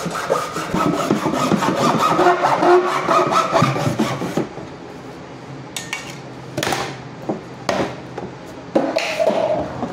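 Scraping and rubbing of hand work on a surface: a dense stretch for the first four seconds or so, then separate short scrapes a second or so apart.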